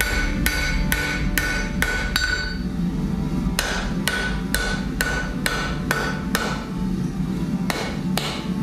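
Hand hammer striking steel on an anvil in forging, about two to three blows a second in short runs with brief pauses, each blow leaving a bright metallic ring.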